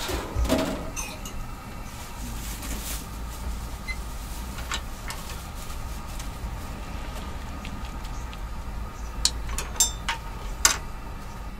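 Steady low rumble and hiss around a steaming commercial noodle boiler, with a few sharp metallic clinks of its stainless steel lid and of utensils against the wire noodle baskets, the loudest near the end.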